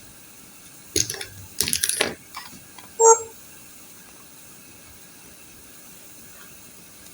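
A short burst of clattering and rustling handling noise, then a single short beep about three seconds in.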